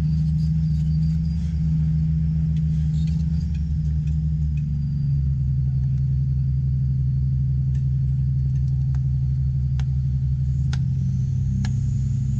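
A heavy vehicle engine running steadily with a deep rumble, its note shifting slightly about five seconds in. In the second half there is a row of sharp metallic clicks, roughly one a second.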